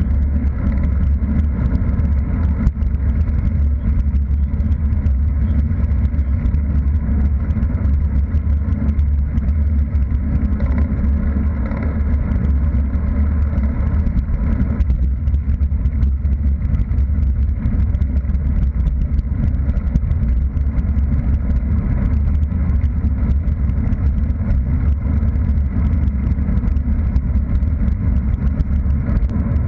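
Wind on the microphone and tyre noise of a bicycle riding along a road: a loud, steady low rumble without a break.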